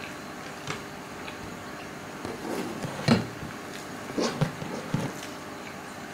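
A person slurping and chewing a mouthful of soupy instant noodles in several short, uneven bursts, the loudest about three seconds in, over a steady low hum.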